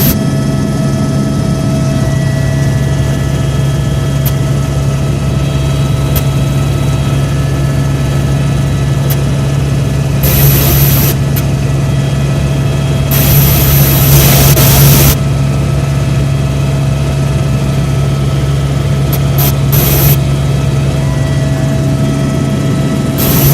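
Helicopter's turbine engine and rotor running steadily: a constant low drone with a steady whine above it, interrupted a few times by short loud bursts of hiss.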